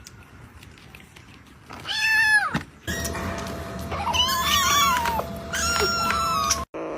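A cat meowing: one short call about two seconds in, then longer, louder wavering meows.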